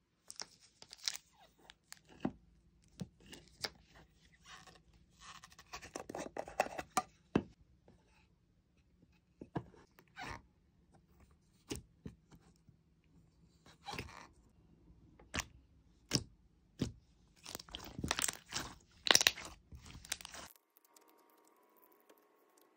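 Slime being handled in and out of its plastic jar: sharp taps and clicks on the jar, and short crackly, tearing squishes as fingers press and pull the clear jelly slime, in separate bursts. Near the end the handling stops, leaving faint room tone.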